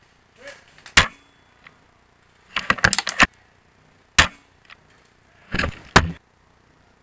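Spring-powered bolt-action airsoft sniper rifle (Novritsch SSG24) being fired and cycled. There are single sharp snaps about a second in and just after four seconds, and short runs of quick mechanical clicks around three seconds and near six seconds, as the bolt is worked.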